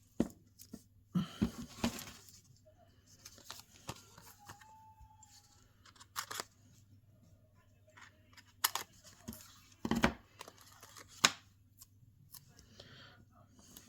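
Paper-crafting handling: backing paper torn and peeled off adhesive foam dimensionals, with scattered taps, clicks and short rustles of card on the desk.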